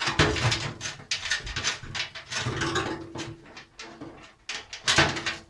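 Irregular knocks, clicks and scraping of hand tools and metal parts being handled while a car body panel is stripped, with one sharp loud knock near the end.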